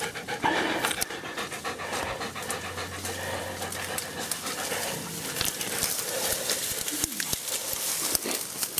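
Hunting dog panting hard, winded after tracking and catching a wounded wild boar.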